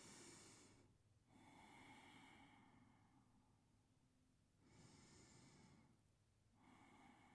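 Faint, slow human breathing: four soft breaths, each a second or two long.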